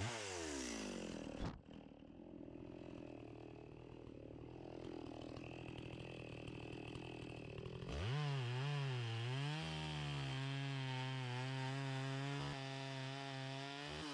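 Echo CS-670 two-stroke chainsaw ripping a large log lengthwise. It runs at full throttle, falls back sharply to a low idle about a second and a half in, revs up again about eight seconds in and holds a steady high speed in the cut, then eases off near the end.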